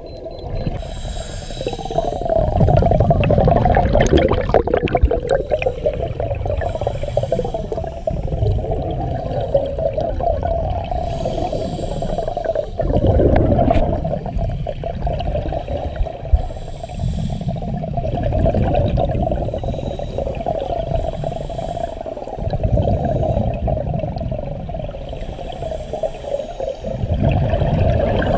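Muffled underwater sound through a camera housing: scuba divers' exhaled regulator bubbles rumbling in surges every few seconds over a steady hum.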